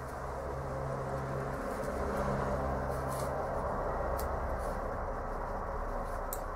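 Steady low background rumble and hum, with a few faint ticks.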